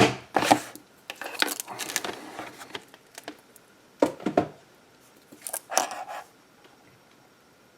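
Handling noise from a stainless steel wristwatch and bracelet: light metallic clinks and rustling in several short bursts.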